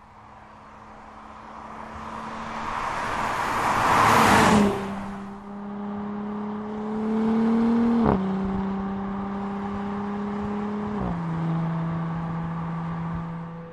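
Audi SQ5 rushing past with a swelling whoosh that peaks about four seconds in, then its engine pulling steadily under acceleration. The engine note climbs slowly and drops sharply twice as it shifts up a gear.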